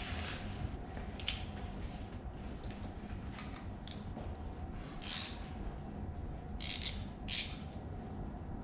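Hand ratchet wrench clicking in short strokes as it backs out the exhaust manifold bolts and studs on a Ford 302 V8. A steady low hum runs underneath.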